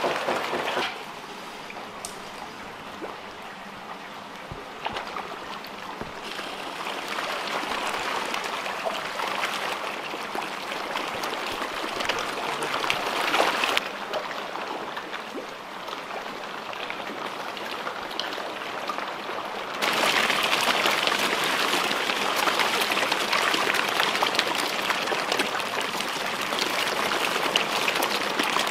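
A crowd of pond fish splashing and thrashing at the water surface as they take thrown feed, a dense, continuous splashing, louder from about two-thirds of the way through.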